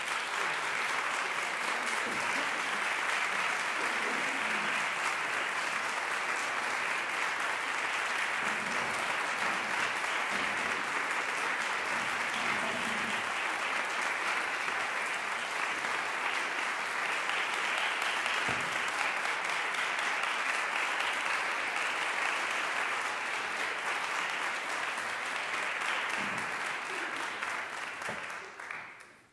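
Audience applauding steadily after a string orchestra performance ends; the applause fades out near the end.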